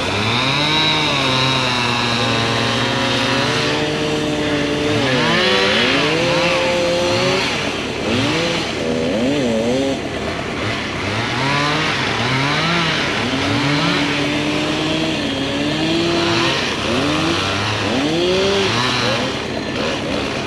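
An engine revving up and down over and over, its pitch rising and falling every second or two as it works under changing load.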